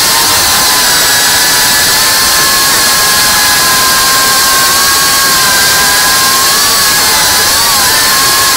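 GEPRC Mark 5 FPV quadcopter's brushless motors and propellers, a loud steady whine. The pitch wavers slightly with throttle changes, dipping and recovering about three-quarters of the way through.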